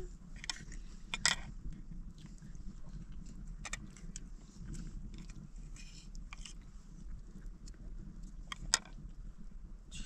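Metal spoons clinking now and then against plates and bowls during a meal, over a steady low background hum.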